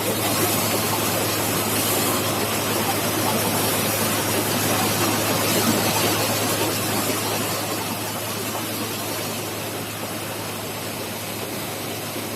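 Pigeon pea threshing machine running steadily with a dense rushing noise over a steady low hum, easing slightly in loudness in the second half.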